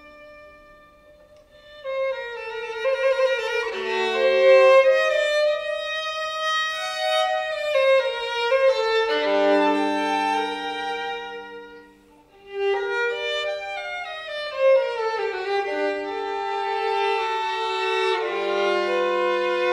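Violin playing a classical piece. A held note fades out about a second in, and after a short pause the playing resumes in a flowing line, with another brief break around twelve seconds.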